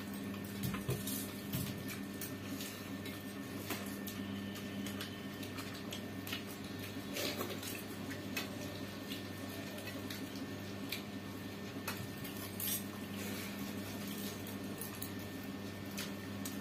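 Stainless steel plates and bowls clinking now and then as food is eaten from them by hand, over a steady low hum.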